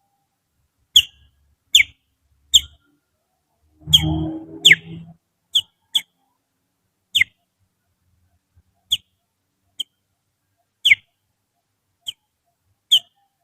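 Finger whistling imitating a kutilang (bulbul) song: about a dozen short, sharp whistled notes, each falling quickly in pitch, at uneven spacing. A brief low rumble sounds along with the notes about four seconds in.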